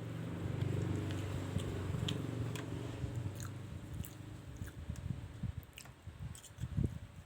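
Close-miked chewing and biting of fried noodles, with wet mouth clicks. A low steady hum runs through the first three seconds, then fades, leaving irregular soft chewing thuds.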